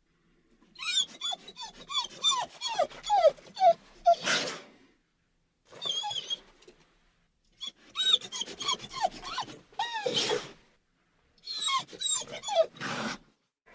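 Dog whining and whimpering in four runs of short, high cries that drop in pitch, with a breathy huff closing most runs.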